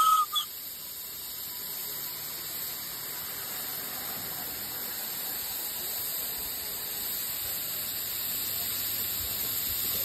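Steam hissing steadily from a live-steam miniature GWR King Class locomotive standing with its boiler under pressure, white steam blowing off from a brass fitting on the boiler top. A brief high squeal cuts off just after the start.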